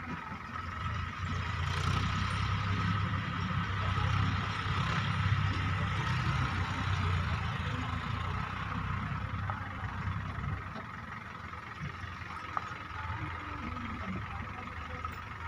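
Diesel engine of an Ace AX130 backhoe loader running, louder for the first several seconds and settling lower after about ten seconds, with a steady high whine throughout.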